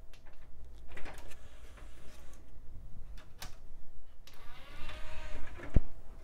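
A CD-ROM drive in a late-'90s HP Pavilion 8240 spinning up with clicks and a rough mechanical whir, then a single thump near the end. It sounds terrible; the owner suspects its spindle motor is going bad.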